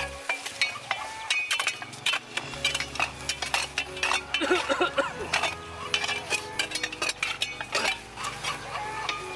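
Small hand hoes clinking and scraping against stones as the soil around young maize plants is worked, a quick irregular run of sharp clinks, over faint background music with held notes.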